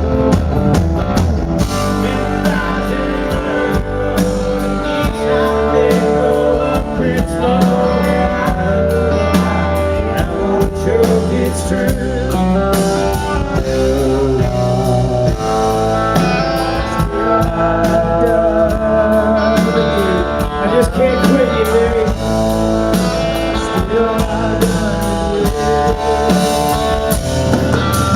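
Live country band playing an instrumental break: a guitar carries a bending lead melody over bass and drums.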